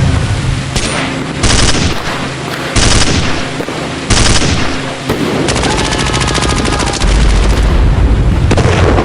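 Battle sound effects: continuous rapid automatic gunfire, with three heavy blasts about a second and a half apart early on, then a steady stream of fast shots over a deep rumble in the second half.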